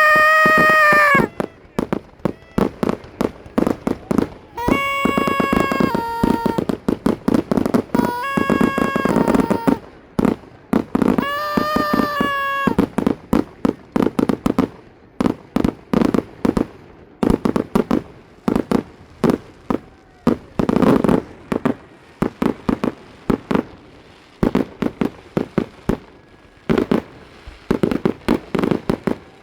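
Fireworks and firecrackers popping and crackling in rapid strings. In the first half a horn sounds four long blasts, two of them stepping down in pitch near their end.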